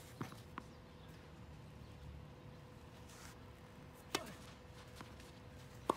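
Tennis ball impacts on a hard court: a sharp knock about four seconds in and another at the very end, with a couple of faint footstep clicks in the first second and quiet outdoor background between.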